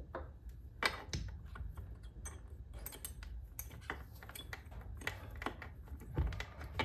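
Irregular light clicks and clinks of small metal parts being handled and lifted out of a KTM 450 EXC engine's gearbox casing during teardown, a few sharper knocks among them.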